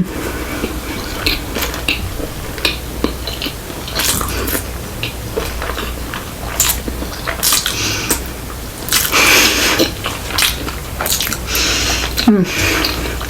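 Close-miked chewing and biting of sushi: wet mouth sounds and short clicks, with a longer burst of noise about nine seconds in.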